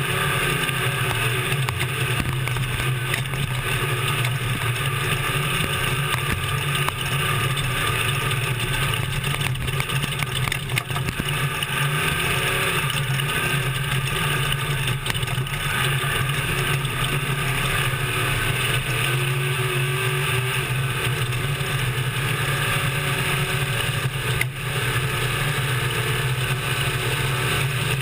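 Class 1450 desert race truck at speed, heard from inside the cab: a steady low engine drone under constant road and wind noise, with occasional knocks and rattles over the desert course.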